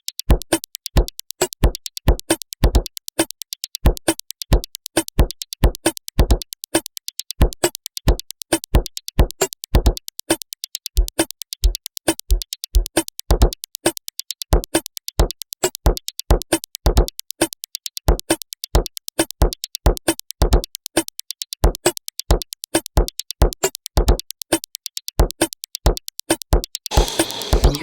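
Electronic drum-machine style beat loop built from chopped slices of a single audio sample, playing back in steady rhythm: punchy low hits with fast, bright ticking on top. About a second before the end it switches to a denser, rougher texture.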